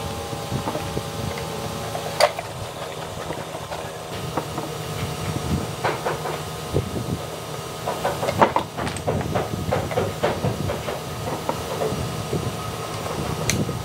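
Wooden linkage arms and steel bolts clicking and clattering as the arms are fitted onto bolts on a wooden toolbox: a sharp click about two seconds in, a quick run of clicks past the middle, and another click near the end. A steady hum runs underneath.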